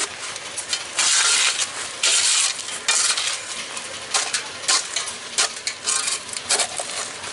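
A steel shovel scraping and digging into gravel ground, a series of gritty scrapes with small clinks of stones.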